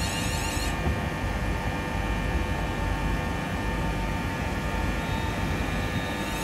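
Class 360 Siemens Desiro electric multiple unit pulling away slowly under its own power: a steady electrical hum with several held tones and a low rumble from the moving train. A high, repeating rising whine stops abruptly under a second in.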